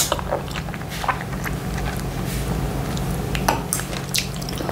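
Close-up eating sounds: a hand-rolled morsel of semolina fufu with ogbonor soup in the mouth, with scattered wet mouth clicks and smacks over a steady low hum.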